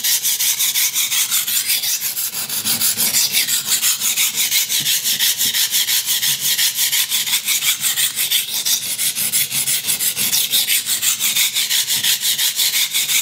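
A soft-steel IKEA kitchen knife blade rubbed fast back and forth on a cheap, coarse sharpening stone, a gritty scrubbing in quick, even strokes. The soft stone is shedding a lot of muddy slurry onto the blade as it cuts.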